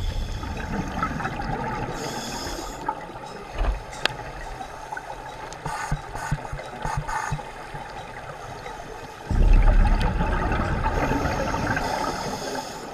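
Scuba diver breathing through a regulator, heard underwater: a hissing inhale about two seconds in, and a loud rumbling burst of exhaled bubbles starting about nine seconds in, with small clicks between.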